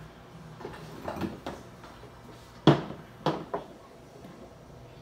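A few short knocks and clicks of small objects being handled on a workbench, the loudest a sharp knock a little past halfway, followed quickly by two lighter ones.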